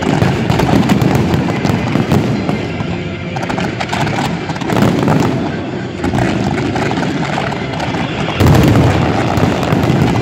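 Fireworks display firing a continuous barrage of bangs and crackles, with no pause between shots. It gets suddenly louder about eight seconds in.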